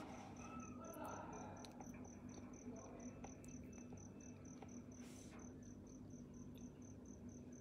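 Faint room tone: a steady high-pitched chirp pulsing about three or four times a second over a low hum, with a brief soft rustle about five seconds in.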